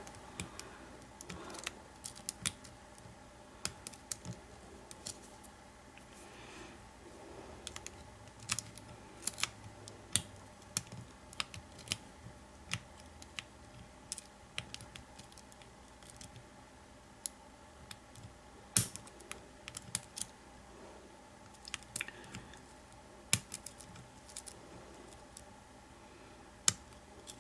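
Steel lock pick clicking and scraping against the pins inside an American 700 padlock: scattered, irregular light clicks, a few sharper ones near the end. The picker guesses the pins are overset.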